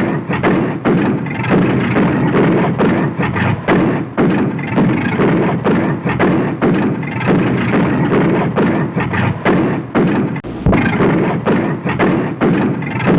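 Toyota Supra exhaust backfiring: a rapid, irregular run of loud pops and bangs, several a second, over the engine's low rumble, with a brief break about ten seconds in.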